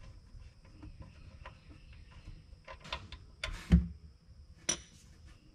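Oil drain plug being unscrewed by hand, with faint clicks, then about three and a half seconds in a short loud splash as the oil begins to run out into a plastic drain pan, and one sharp click about a second later.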